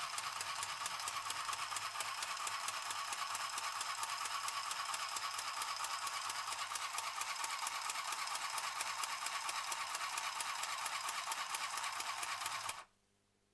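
Mini sewing machine running steadily, its needle stitching rapidly through paper, then stopping suddenly near the end.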